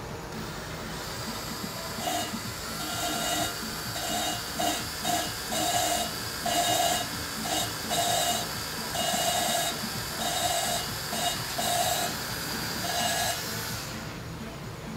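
Cordless drill spinning a valve-lapping tool in a dozen or more short trigger bursts, grinding a valve against its seat in a Subaru FB20 cylinder head with grinding compound. It whines at a steady pitch with a hiss during each burst, starting about two seconds in and stopping near the end.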